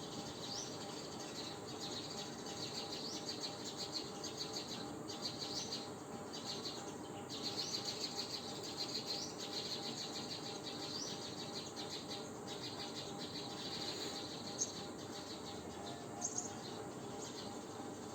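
Steady insect chirring with short bird-like chirps over it. A few sharp clicks come near the end.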